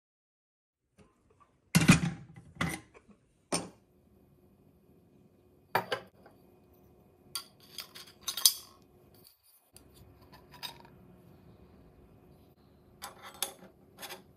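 Aluminium puttu steamer parts knocking and clinking as they are handled and fitted together: a few loud knocks about two seconds in, then scattered lighter clinks and taps, with a last few near the end.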